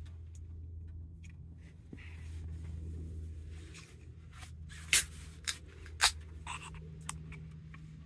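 A steady low hum with a handful of sharp clicks and knocks in the second half, the loudest about five seconds in.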